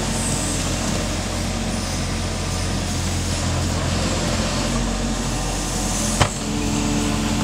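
Diesel engine of a mini excavator running steadily. A single sharp knock sounds about six seconds in.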